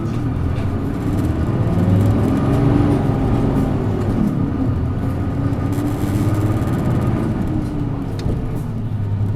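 Isuzu Erga PJ-LV234N1 city bus's diesel engine running under way, heard from inside the cabin. Its pitch rises and falls several times.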